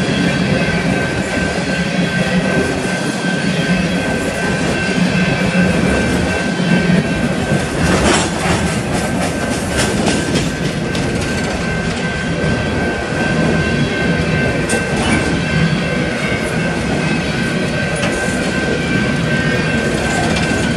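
Empty coal cars of a freight train rolling past with a steady rumble and a thin, steady high squeal from the wheels. About eight to ten seconds in comes a quick run of clicks as the wheels cross rail joints.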